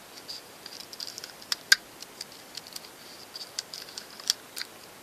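Small clicks and crinkles of carbon paper being pressed into a wooden bowl and taped down with strips pulled from a desk tape dispenser, with a few sharper snaps standing out.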